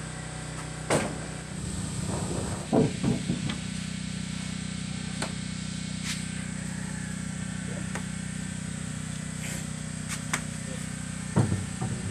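Heavy sawn timber planks knocking and thudding as they are picked up, carried and laid down: a sharp knock about a second in, a cluster of knocks around three seconds, and scattered knocks after. A steady low hum runs underneath.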